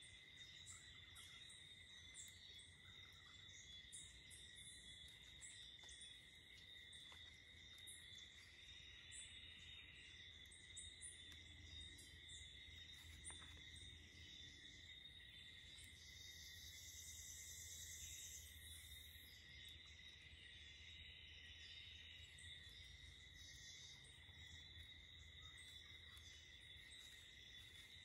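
Faint, steady insect chorus trilling on one high pitch, with scattered higher chirps over it.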